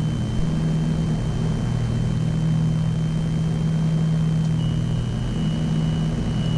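Steady cabin drone of a Piper Navajo Panther's twin piston engines and propellers, the props set to high rpm for the approach. A thin steady high-pitched tone runs through it.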